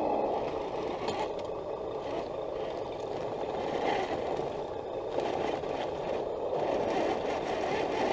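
Scale RC crawler climbing a rock ledge: a steady muffled drivetrain noise with a few scrapes and clatters of tyres and body on rock.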